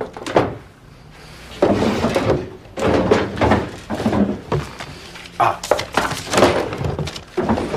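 Wooden desk drawer being searched: thunks and knocks of the drawer and things in it, with papers shuffling, in several separate bursts.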